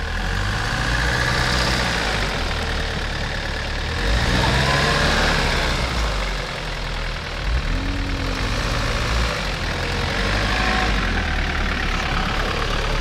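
An SUV's engine running under load in deep snow, its note rising and falling as the vehicle digs in and struggles to get out of a rut.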